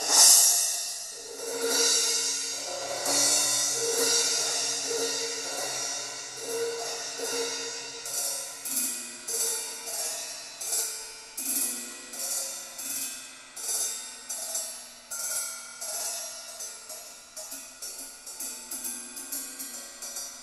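Music played through a JBL Control 28 loudspeaker (8-inch polypropylene woofer, 1-inch titanium-coated tweeter), starting suddenly, with bright cymbals and hi-hat over a regular beat and little deep bass.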